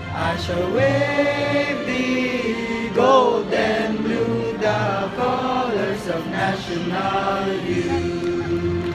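A large crowd of graduates singing together in a hall, a massed choir holding long, drawn-out notes.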